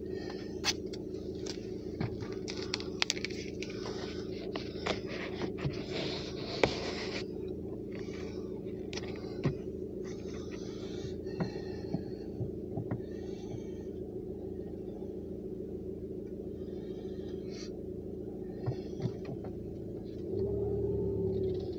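A steady low hum inside a car cabin, with scattered light clicks and rustling over the first several seconds. A louder, deeper hum comes in near the end.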